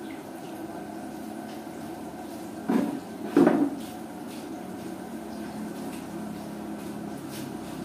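Two short dull knocks, under a second apart, about midway, over a steady low background hum.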